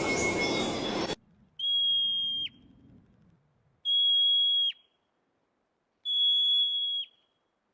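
An animal's whistled call: three long, high whistles about two seconds apart, each held steady at one pitch and ending in a quick downward drop. Before them, a second of hissy noise cuts off suddenly.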